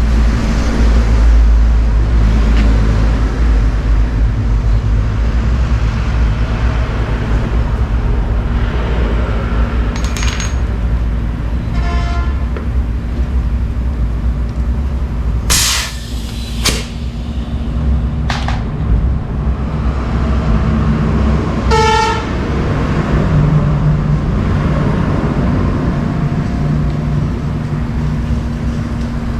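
Steady rumble of road traffic, with a vehicle horn honking twice, about twelve and twenty-two seconds in. A few short, sharp noises come in between, the loudest about sixteen seconds in.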